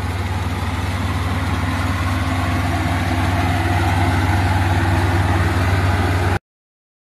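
Dooxin DX500PC-9 excavator's diesel engine running steadily with a low drone. It gets a little louder about halfway through, then the sound cuts off abruptly near the end.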